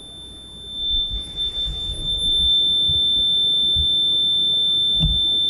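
REM pod ghost-hunting device sounding its alarm: one steady, high-pitched electronic tone held without a break. The tone signals that something has disturbed the electromagnetic field around its antenna.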